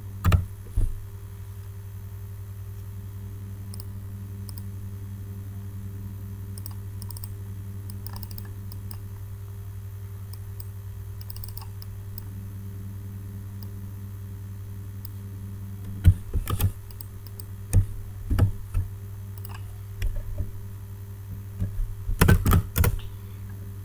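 Computer keyboard typing in short bursts: a few keystrokes at the start, then a long pause, then a flurry of keystrokes in the last eight seconds, over a steady low hum.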